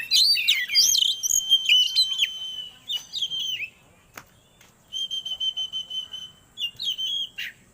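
Oriental magpie-robin (kacer) singing: varied whistled phrases with sweeping notes and trills. After a short pause about halfway through comes a fast run of repeated notes at one pitch, then more whistles.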